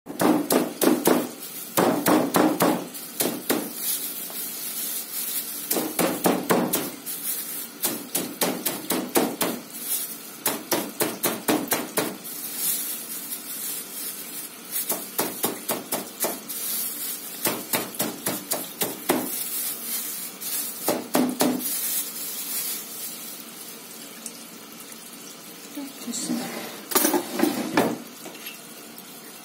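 Meat mallet pounding raw chicken breast fillets through a plastic bag on a plastic cutting board: quick runs of blows with short pauses between them. The blows thin out in the last few seconds.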